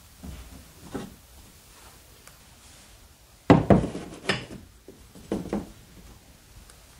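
Knocks and taps as a torpedo level is shifted and set against a metal floating-shelf bracket on the wall. There are a few light taps at first, a cluster of louder knocks about halfway through, and two more shortly after.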